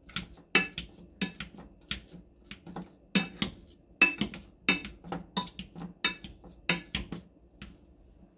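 Wire potato masher striking the bottom of a nonstick saucepan while mashing boiled potatoes: a run of short metallic clanks, roughly two a second, stopping shortly before the end.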